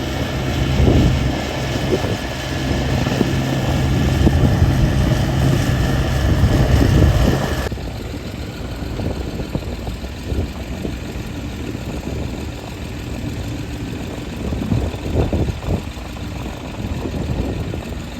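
Engine of a trenching machine running while digging a trench for a water line, with a strong low steady drone. About eight seconds in the sound changes abruptly: the low drone drops away, leaving a rougher, thinner engine noise.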